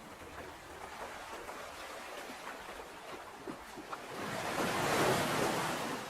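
Ocean waves on a shore: a steady wash with one wave swelling in about four seconds in, peaking, then subsiding near the end.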